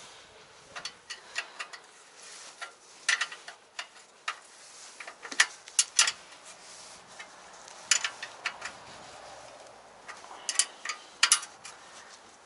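Irregular sharp metallic clicks and taps from hand work on a bicycle wheel being straightened and adjusted so that it stops rubbing, with a few louder clicks scattered through.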